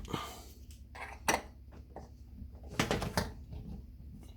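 A few sharp metallic clicks and knocks from a tool working a tight washing-machine shipping bolt loose: one about a second in, then a quick cluster near three seconds.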